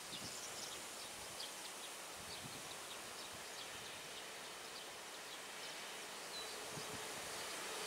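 Quiet outdoor ambience: an even hiss with scattered short high chirps. About six seconds in, a faint steady hum comes in from the distant Alstom Coradia iLint hydrogen train as it approaches.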